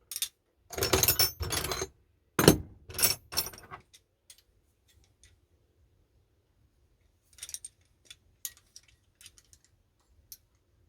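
A handful of old steel pliers clinking and clattering against each other as they are picked up and set down, with one sharper metal knock about two and a half seconds in. A few lighter clicks follow near the end.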